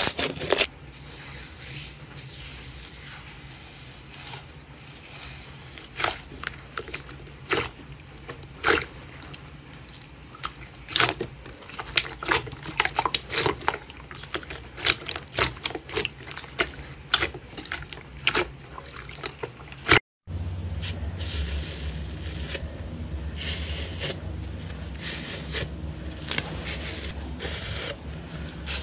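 Slime squeezed and kneaded by hand: wet squishing with many sharp clicks and pops. About 20 s in the sound cuts out for a moment and gives way to denser, steady crackling from foam-textured slime over a low hum.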